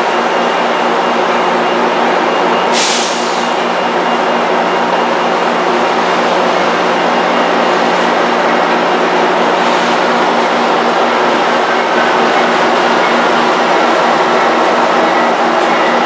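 Diesel locomotive engine drone, steady and low, growing slightly louder near the end as a BNSF GE AC4400CW draws near. A short hiss of air about three seconds in.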